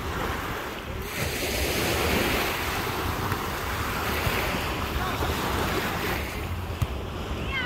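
Small waves breaking and washing up on a sandy shore, swelling and easing, with wind rumbling on the microphone.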